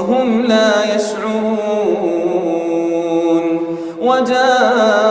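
A man reciting the Quran in melodic tajweed, holding long ornamented notes that waver up and down; a short break about four seconds in, then the next held phrase begins.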